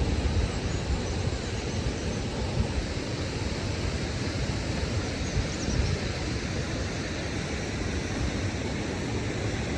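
Steady rushing noise of Nuranang Falls, a large waterfall heard close by, an even wash of falling water with no breaks.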